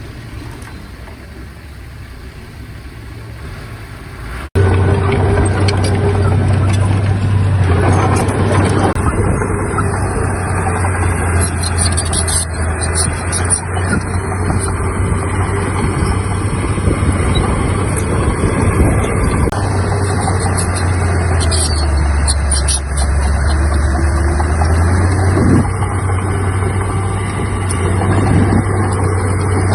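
Heavy diesel earthmoving machinery running. It is quieter at first, then jumps abruptly about four and a half seconds in to a loud, steady engine drone with a deep hum, and there are a few sharp clanks along the way.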